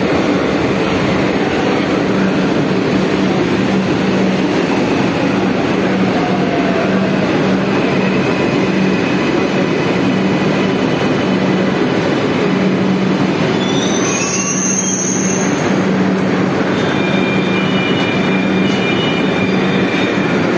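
Underground metro train running into the platform and slowing, a loud steady rumble of wheels on rail with thin high squealing tones coming and going.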